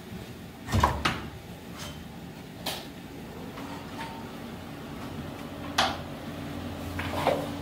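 An interior door being opened: the handle's click and the door's knock, the loudest, about a second in, followed by a few more sharp knocks and bumps. A low steady hum comes in about halfway.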